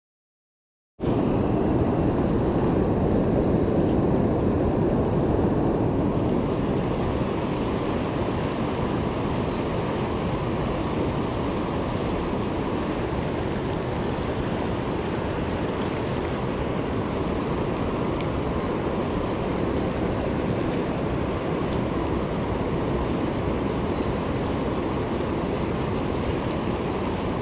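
Fast river current rushing over rocks in a steady rush of water that cuts in about a second in.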